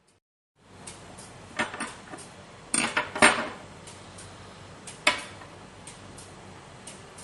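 A few sharp metal clinks and clatters, in a cluster during the first half and one more a little after the middle, as the steel kitchen scissors are handled and set down, over a faint steady background hiss that starts about half a second in.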